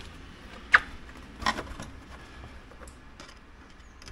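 Hard plastic parts knocking and clicking as they are handled and fitted: a sharp click about three quarters of a second in, a second one about a second later, then a few faint ticks.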